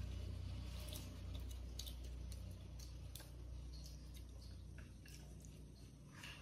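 A person eating rice from a bowl with chopsticks: soft chewing and scattered small clicks of the chopsticks against the bowl, over a steady low hum.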